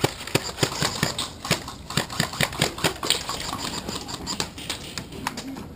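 Airsoft guns firing: a quick string of sharp shots, about four to five a second, for the first three seconds or so, then sparser, fainter shots.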